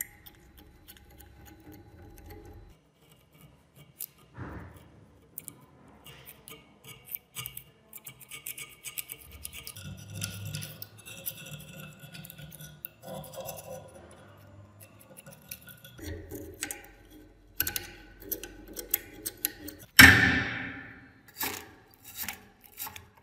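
Steel scraper blade scraping and ticking against the inside of a heavily rusted iron meat-grinder ring, loosening caked rust in short irregular strokes. A single louder hit about 20 seconds in dies away over about a second.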